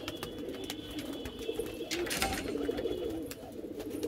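Pigeons cooing steadily, with light clicks and handling noises from a plastic oil bottle being capped and moved.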